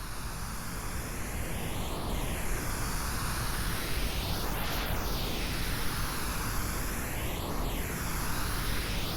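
Pink noise, a steady full-range hiss, processed as 8D audio so that it circles around the listener's head. It still swells up over the first second or so, and a swishing, phaser-like sweep recurs every two to three seconds as the sound pans around.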